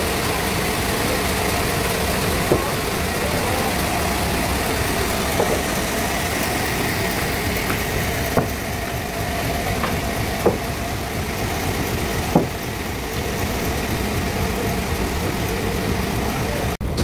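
Band sawmill machinery running with a steady noise, with a short sharp knock every two to three seconds. The sound drops out abruptly for an instant near the end.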